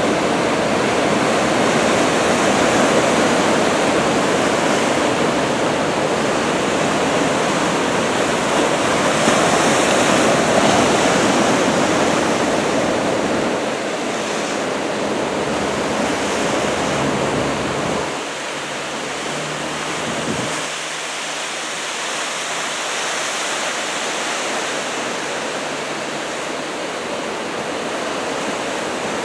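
Ocean surf breaking, a steady rushing wash of waves that eases a little about two-thirds of the way through.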